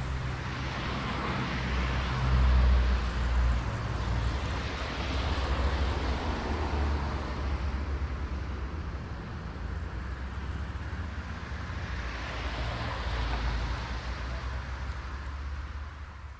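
Road traffic: cars passing one after another, the tyre and engine noise swelling and fading over a steady low rumble, the loudest pass about two to three seconds in. The sound dies down near the end.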